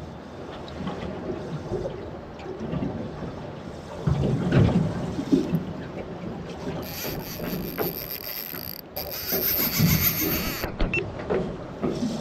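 Wind and choppy water slapping against a small fishing boat, with knocks. From about seven seconds in, a steady high-pitched rattle runs for three or four seconds.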